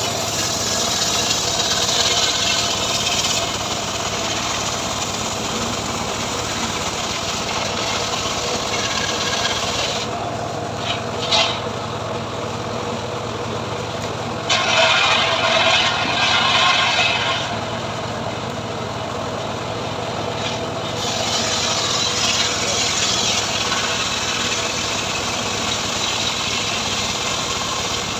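Homemade engine-driven portable sawmill running and cutting through a mahogany log, a steady motor tone under the rasping saw noise. The cutting noise eases off for a few seconds about a third of the way in and again past the middle, then picks back up.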